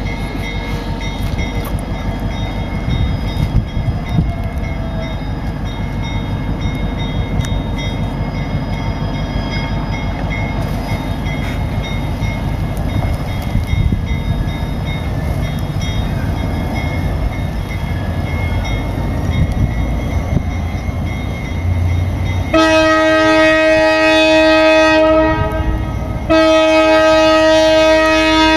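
Diesel locomotive with a steady low rumble in the distance. About 22 seconds in, its air horn sounds a long blast, then after a short break a second long blast.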